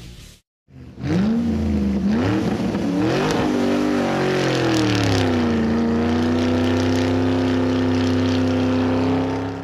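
Classic sports racing car's engine accelerating hard: its pitch climbs, dips briefly at a gear change and climbs again, then falls about four seconds in and holds a steady note as the car drives off. It fades out at the end.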